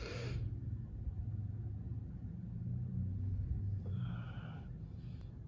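Steady low background rumble, with a brief soft hiss about four seconds in and a fainter one near the end.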